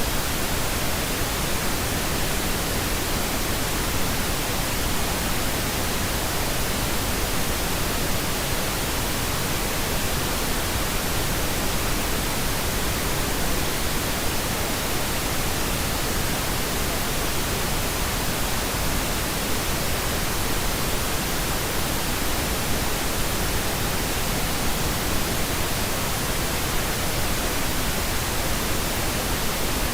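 Steady white noise: an even, unchanging hiss spread across the whole range of pitch.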